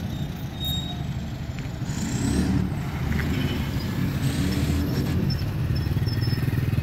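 Motor vehicle engines running at low speed, with a motorized tricycle pulling away close by; a low, pulsing rumble that grows stronger near the end.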